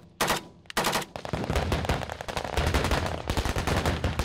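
Automatic gunfire: two short bursts, then from about a second in, long continuous rapid fire.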